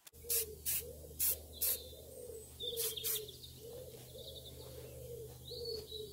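Aerosol spray-paint can squirted in about six short bursts in the first three seconds, dusting black and red accents onto a painted motorcycle frame.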